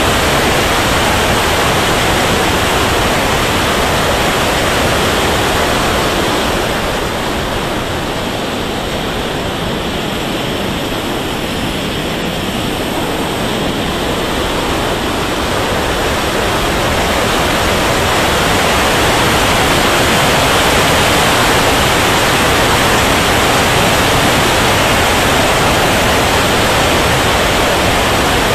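Rushing airflow and engine noise heard from a camera riding on an RC turbine jet in flight: a steady roar with no clear whine in it, easing a little for several seconds in the middle.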